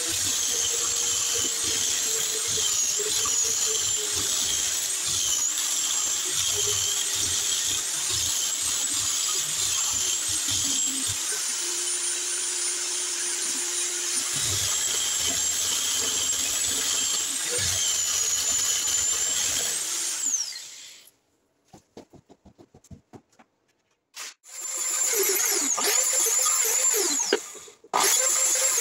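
Electric drill spinning a wooden handle against a steel blade, wood turning with the drill as a lathe. Its high motor whine dips and recovers as the cut loads it. The drill stops about 20 s in, a few seconds of near silence with light clicks follow, and then another power tool runs near the end.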